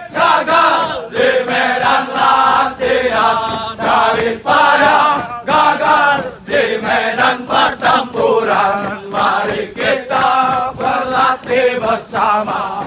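A large group of military trainees' voices chanting a running song in unison while jogging, in short loud phrases with brief breaks between them.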